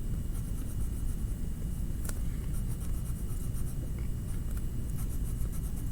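Coloring tool scratching on paper as a stripe is colored in, a run of short, faint strokes over a low steady hum, with one sharp click about two seconds in.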